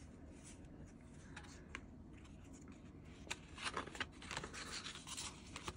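Soft rustling and light taps of paper and card inserts being handled, faint at first and busier in the second half, with a couple of sharp little clicks.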